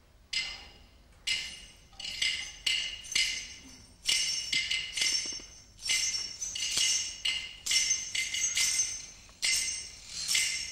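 Small metal percussion struck in an uneven run, each stroke ringing high and fading. The strokes come about one a second at first, then quicker.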